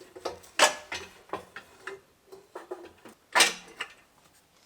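Clicks, light knocks and clinks of tools and engine parts being handled, with two louder brief noises about half a second and three and a half seconds in.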